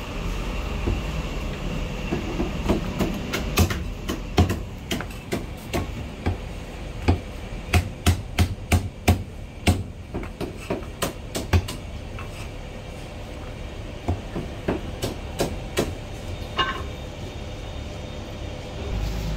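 Heavy Chinese cleaver chopping braised meat on a thick round wooden chopping block: a run of sharp, uneven chops, coming about two a second and thickest in the middle stretch.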